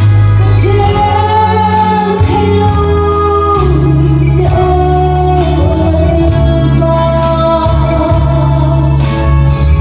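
A woman singing in long held notes through a handheld microphone over an instrumental backing track with a steady bass line.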